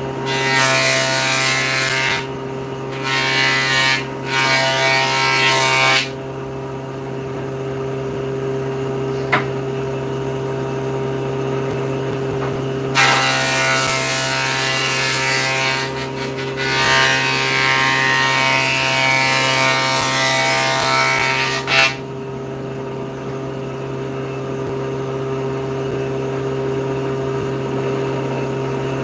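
Table saw running with a steady whine, its blade cutting through a board twice: for about six seconds near the start and for about nine seconds in the middle, each cut louder and rougher than the free-running blade.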